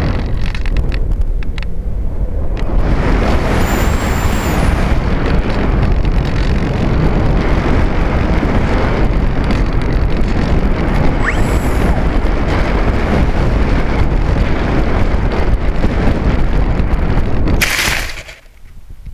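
Loud wind rush and buffeting on a model aircraft's onboard camera microphone in low, fast flight. Near the end a short loud crunch as the aircraft comes down into long grass, after which the sound drops to faint rustling.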